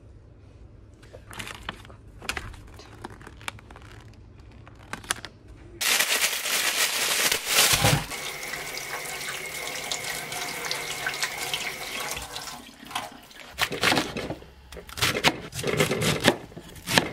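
A few light clicks of plastic spray bottles being handled. About six seconds in, a kitchen tap starts running hard into a stainless steel sink while a cabbage is rinsed, for about six seconds. Near the end, a knife chops through the cabbage on a wooden cutting board in several sharp strokes.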